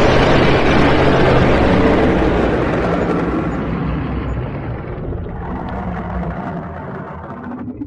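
Dragon sound effect: one long, loud, rough blast with a low hum underneath, fading gradually over several seconds.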